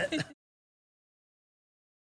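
The tail of a spoken word cut off sharply, then dead digital silence: the sound track is empty.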